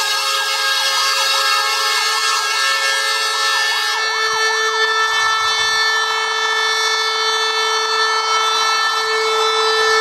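Fire engine's siren sounding a rapid rising-and-falling yelp that changes about halfway through to a steady held tone. A lower steady tone runs under it throughout.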